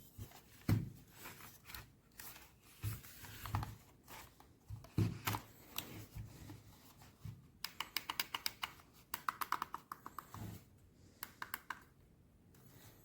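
Handling noises: irregular taps, scrapes and rustles, then quick runs of small clicks in the second half.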